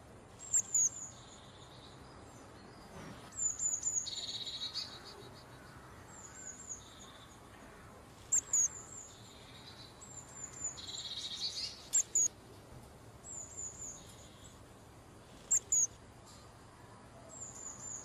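Common kingfisher calls: shrill, high, sharp chirps repeated every second or two. Twice there is a raspier buzzing call lasting about a second.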